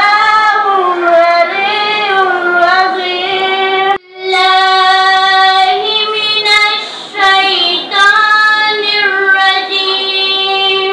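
Quran recitation chanted melodically in a high voice, with long held notes that waver and turn in pitch. The reciter takes a quick breath about four seconds in, and another shorter pause a little after seven seconds.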